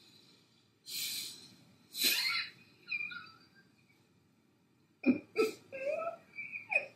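A woman's breathy vocal sounds: a sharp exhale about a second in, a cough-like burst about two seconds in, then a few soft murmured syllables near the end.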